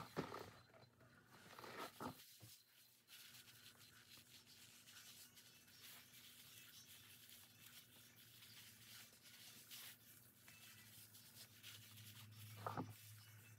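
Near silence, with faint rubbing and rustling of gloved hands working hair colour through curly hair, and a few soft knocks near the start and once near the end.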